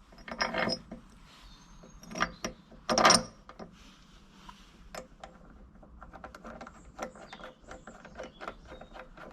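Steel bracket and bolts being handled and fitted onto a plough: a few metallic clanks, the loudest about three seconds in, then a run of light quick clicks.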